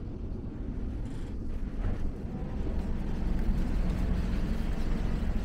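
Steady low rumble of outdoor street ambience along a shopping walkway, with no distinct event standing out.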